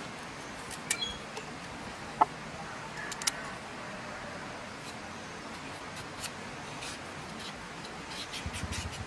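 Knife blade scraping the skin off a raw carrot, a few scattered sharp clicks and taps, then a run of quick scraping strokes near the end, over a steady hiss. A short high chirp sounds about two seconds in.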